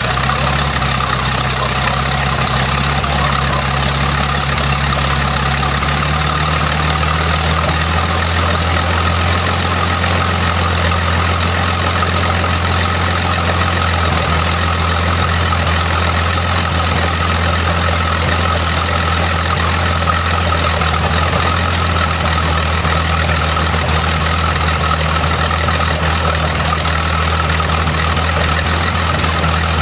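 Hawker Hurricane's Rolls-Royce Merlin V12 aero engine running steadily, its note rising slightly about six to eight seconds in and then holding.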